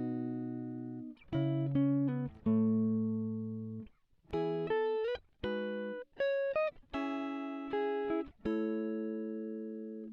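Background music: a plucked guitar playing single notes and chords, each ringing out and fading, some with short upward slides.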